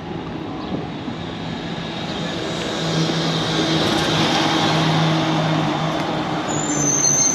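Diesel engine of a rear-loader garbage truck driving close past, its sound building over the first few seconds as it approaches. A high steady whine joins near the end.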